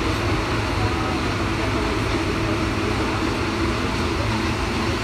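Paris Métro MP73 rubber-tyred train running at a steady speed, heard on board: an even rumble of tyres and running gear with a hiss of track and air noise.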